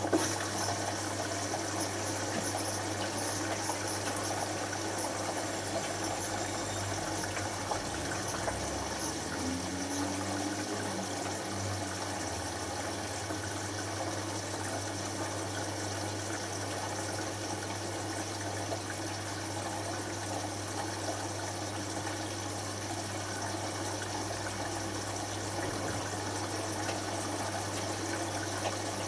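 Hotpoint HF8B593 washing machine filling with water for its first rinse: water rushing in steadily through the inlet valve, with a constant mains hum, starting abruptly.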